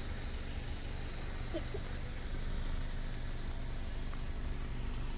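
Steady low rumble and hiss of outdoor background noise, with a faint short chirp about a second and a half in.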